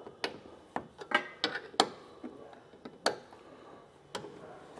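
Scattered sharp metallic clicks and taps, about seven at irregular spacing with a brief ring near a second in, from a wrench working the hex bolt of an aluminum truck bed rack clamp bracket. The bolt is being tightened until its lock washer flattens.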